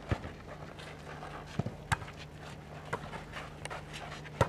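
Volleyball game play: sharp slaps and thumps at irregular intervals, several in a few seconds, as the ball is struck and lands.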